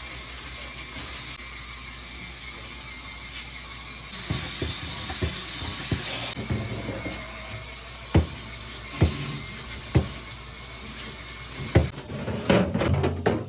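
Steady hiss of running or spraying water, with several sharp knocks about a second apart and then a burst of clattering near the end, as of fridge shelves and containers being handled during cleaning.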